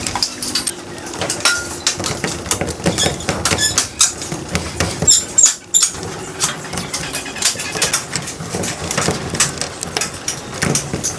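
Hand work on house-wiring splices: a busy run of small clicks, taps and brief squeaks as the joined wires are handled.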